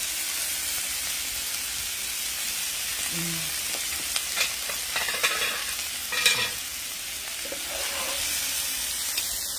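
Chicken thighs with onions and sweet peppers sizzling in a frying pan over a wood fire. Metal tongs scrape and clink against the pan several times midway, the loudest clink about six seconds in.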